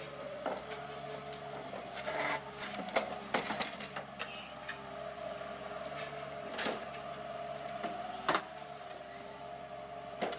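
Bracke C16 felling head working small trees on a forestry machine: a steady hum of the machine's engine and hydraulics, broken by sharp cracks and knocks of wood and metal several times, the loudest about eight seconds in.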